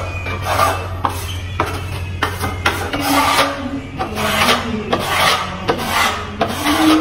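Steel plastering trowel scraping wet skim coat across a wall in repeated rasping strokes, roughly one or two a second.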